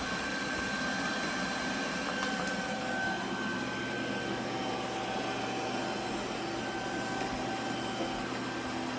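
iRobot Roomba Combo robot vacuum running steadily, its motor whirring with a few steady tones through the noise. It is stuck working over one spot that it can't get out of.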